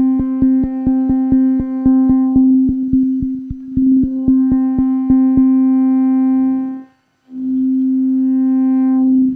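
Teenage Engineering OP-1 synthesizer holding one steady note, with a fast, even run of clicks over it for the first five seconds or so. Its upper overtones fade and return as a filter effect is turned, cutting the highs. The note cuts out briefly about seven seconds in, then sounds again.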